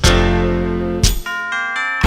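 Background music. A held chord with bass gives way, about a second in, to a short phrase of high, bell-like keyboard notes without bass.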